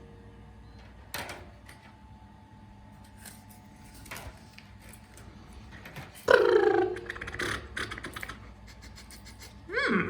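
Light clicks and taps of small plastic toy parts being handled, likely the Kinder Surprise dinosaur toy, with a short voiced exclamation falling in pitch about six seconds in.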